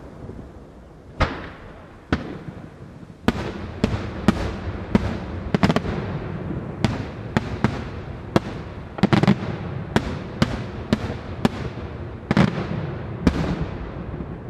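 Aerial firework shells bursting in a rapid, irregular series of sharp bangs, each with an echoing tail. A single bang comes about a second in, then several a second from about three seconds in, with the heaviest bursts past the middle and near the end.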